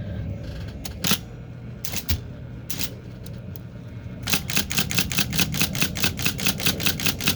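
IBM Selectric II electric typewriter being test-typed over the steady hum of its running motor: a few single keystrokes, then from about four seconds in a fast, even run of strikes, about six or seven a second. This is the test after a sticky pivot that had been throwing dashes was flushed with lacquer thinner.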